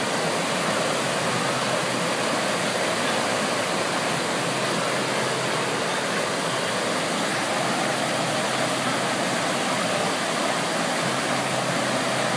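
Steady rushing of water pumped in a thin, fast sheet up the padded ramp of a sheet-wave surf simulator.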